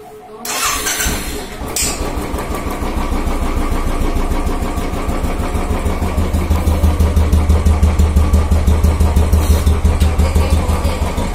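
Royal Enfield Classic 350 single-cylinder engine electric-started, cranking briefly and catching within about a second, then idling with an even exhaust thump of about six beats a second through its stock silencer.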